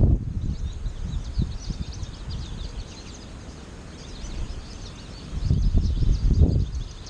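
American goldfinches twittering in a flock, many short high chirps throughout. Wind rumbles on the microphone in gusts at the start and again from about five and a half seconds in, the loudest sound.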